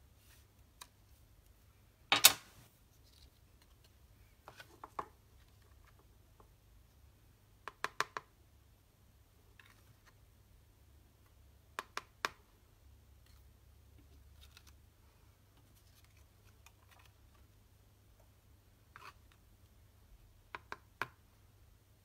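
Scattered light clicks and taps of paper-craft supplies being handled on a work mat and in a clear plastic storage case, a few at a time with quiet gaps between; the loudest, sharpest click comes about two seconds in.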